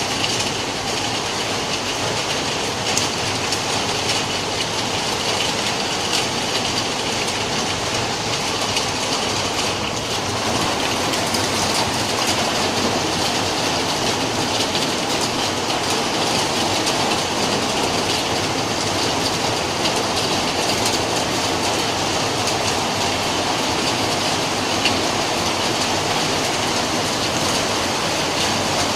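Steady rain falling, a loud, even hiss that does not let up.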